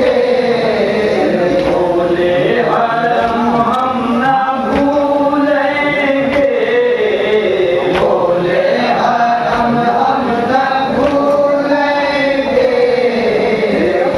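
Men chanting a nauha, a Shia mourning lament, together into a microphone, their voices carrying one slow melody that rises and falls in long held phrases.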